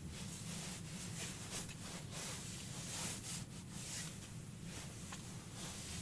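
Rustling and rubbing of clothing and tent fabric as someone shifts about and handles gear, over a steady low hum.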